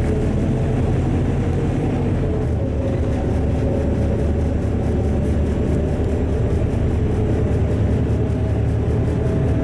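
LiAZ-4292.60 city bus heard from inside its passenger cabin while driving: a steady drone of its diesel engine and road noise.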